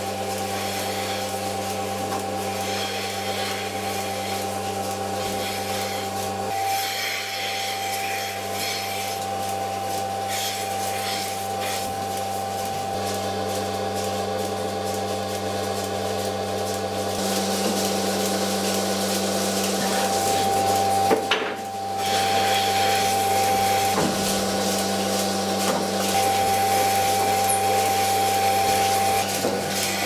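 Milking-machine vacuum system running in a milking parlour: a steady motor hum with a hiss of air and milk, broken briefly about two-thirds of the way through and a little louder after that.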